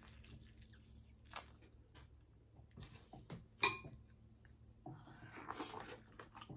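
Close-up sounds of a person eating a seafood boil: soft chewing and mouth sounds, with two sharp clicks about a second and a half in and near four seconds. A longer, noisier stretch of eating sounds comes near the end.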